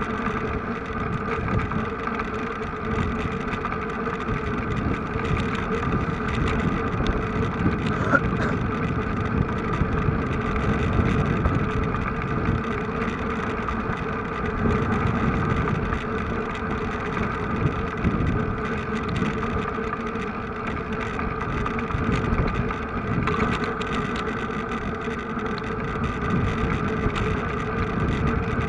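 A vehicle engine running at a steady speed, with a constant hum and gusty wind rumble on the microphone.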